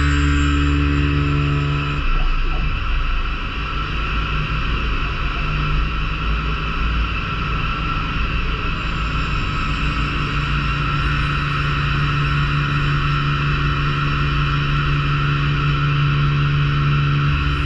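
DMG Mori NLX2500SY CNC lathe running during a machining cycle: a steady machine hum with several held tones. The low hum drops and turns rougher about two seconds in, then settles again.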